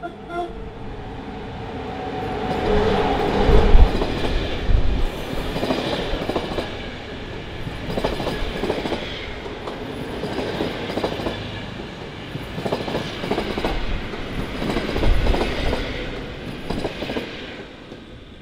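HŽPP class 1141 electric locomotive passing close by, followed by a rake of passenger coaches whose wheels click over the rail joints in repeated clusters. The sound is loudest as the locomotive goes by about four seconds in, and it fades as the last coach passes near the end.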